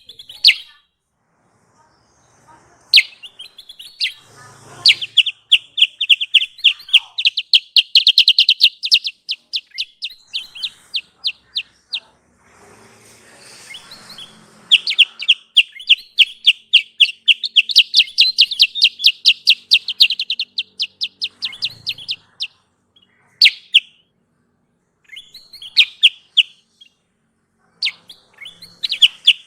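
Kutilang sutra (silver-eared mesia) calling in long, fast trains of high chirps, several notes a second, broken by pauses and a few short single calls near the end. It is a lure call recording used to draw in wild birds of the same kind.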